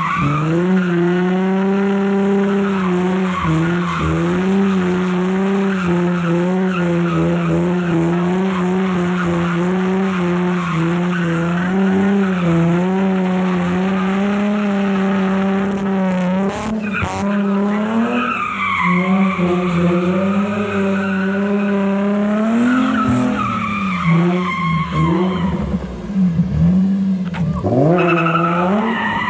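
Nissan 350Z's V6 held high in the revs while the car drifts, rear tyres spinning and sliding on wet concrete. The revs dip and climb again several times in the last few seconds.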